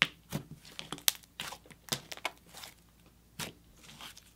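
Thick jelly slime, slightly wet, being pressed and stretched by hand, giving irregular sticky clicks and pops, a dozen or so over a few seconds.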